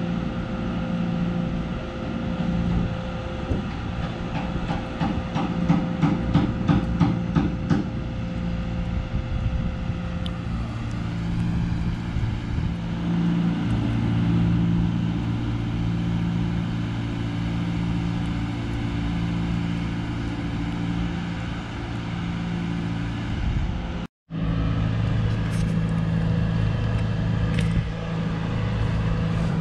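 An engine running steadily, its low hum pulsing about once a second. A run of rapid clicks a few seconds in; the sound cuts out for a moment near the end.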